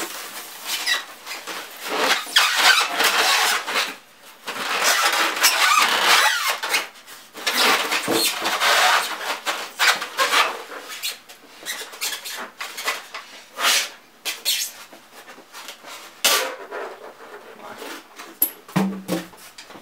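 Styrofoam packing blocks rubbing, squeaking and scraping against the sewing machine as they are pulled off it. The scraping comes in long stretches through the first half, then gives way to scattered knocks and clicks of foam and plastic being handled.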